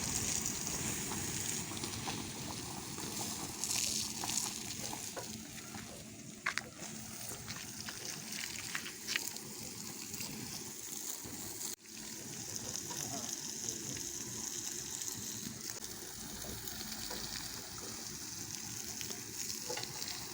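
Water from a garden hose poured onto the embers of a dying bonfire, hissing and sizzling steadily as the fire is put out.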